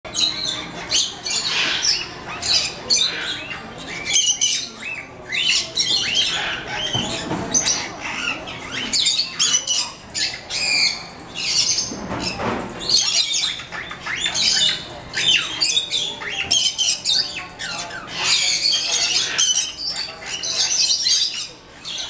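Small parrots, cockatiels among them, chirping and squawking in a dense, unbroken chatter of many overlapping high calls.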